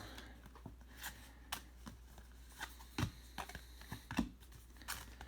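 Trading cards being handled and flipped through: a few soft, irregular clicks and slides of card against card.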